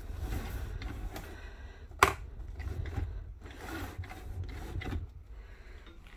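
An RV window roller shade being pulled down by hand, its fabric and roller mechanism rustling, with one sharp click about two seconds in and a low rumble underneath.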